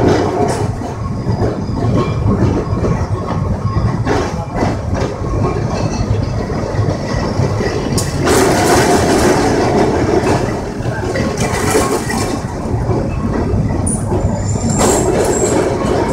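A Calcutta Tramways tram car running along its street track, heard from inside the moving car: a steady rumble of steel wheels on the rails with occasional clatter. The noise swells for a few seconds about halfway through and again near the end.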